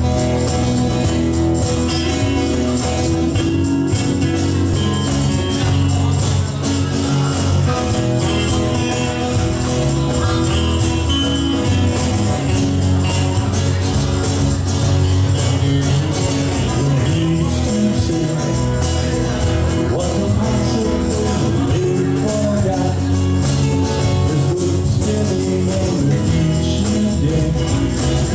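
Live band playing: electric bass, strummed acoustic guitars and a harmonica, with a steady beat and no pause.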